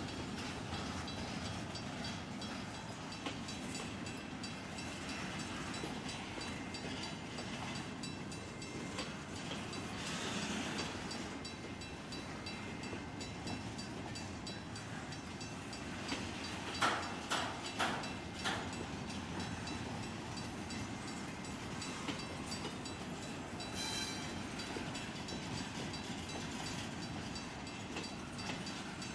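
Double-stack intermodal freight train rolling past: a steady rumble of steel wheels on rail, with a quick run of sharp knocks a little past halfway.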